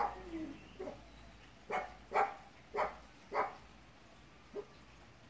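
A dog barking: a run of four short barks about half a second apart, with a fainter single bark before them and one after.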